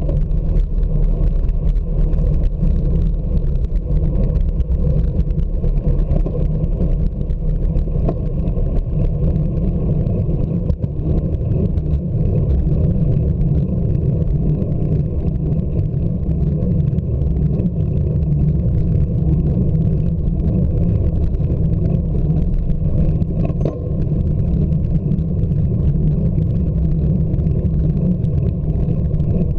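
Steady low rumble of wind on the microphone of a camera mounted on a moving bicycle.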